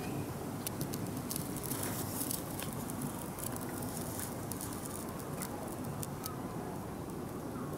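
A crowd of guinea pigs eating cabbage: a dense patter of small crunches and rustles from leaves being bitten and torn, thicker in the first three seconds, over a steady low background rumble.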